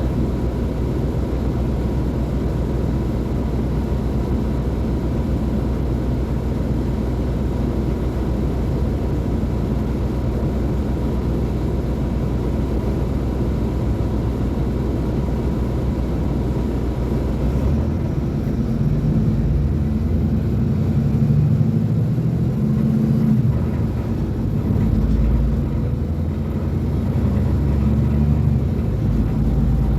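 Mercedes-Benz O500U bus diesel engine running with a steady drone. About two-thirds in, the higher hiss falls away and the deep engine note grows louder and rises and falls.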